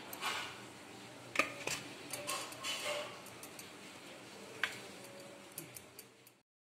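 Kitchen knife cutting soft steamed dough dumplings on a stainless steel plate: a few sharp clicks as the blade strikes the metal plate, with quieter scraping between them. The sound cuts off suddenly near the end.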